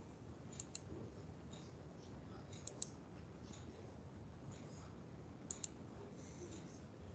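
Faint clicking over a low steady hiss: three quick double clicks spread through the stretch, with fainter single ticks between them.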